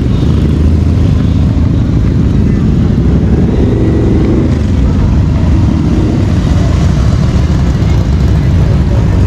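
Motorcycle engines running with a steady deep rumble.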